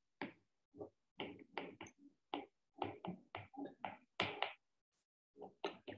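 Faint, low murmured speech: a man's voice in short broken syllables, talking under his breath.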